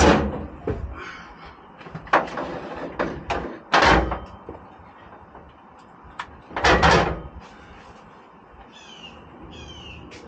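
Four loud clunks and knocks, as of hard objects being moved and set down: one at the start, one about two seconds in, one near four seconds and a doubled one near seven seconds, each with a short rattle after it. Two brief runs of high, falling chirps come near the end.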